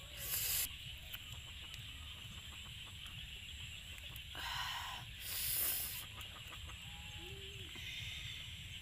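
Faint clucking of chickens in the background, heard about a second in and again near the end. Three short noisy bursts, the loudest sounds, come near the start and twice in the middle.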